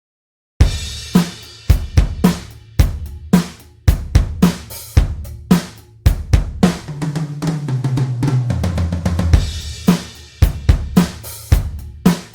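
Toontrack EZdrummer 3 sampled drum kit playing a groove of kick, snare, hi-hat and cymbals, starting suddenly about half a second in. Midway through, a fill steps down in pitch before the beat resumes.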